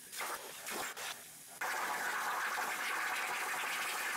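CNC plasma table torch cutting steel sheet: a steady hiss that starts about a second and a half in, after a few short puffs of hiss.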